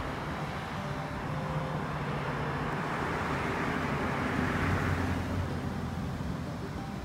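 A motor vehicle passing, its noise swelling to a peak about four to five seconds in and then fading, over a low steady hum.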